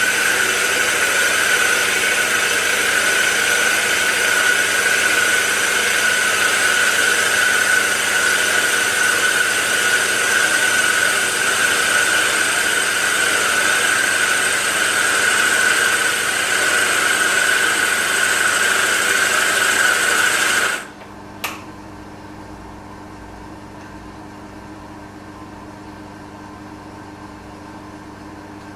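Milling machine spindle running with a boring head making the final boring pass to 1 inch in a cast iron part: a loud, steady whine with cutting hiss. About two-thirds of the way through it stops abruptly, followed by a single click and a much quieter steady hum.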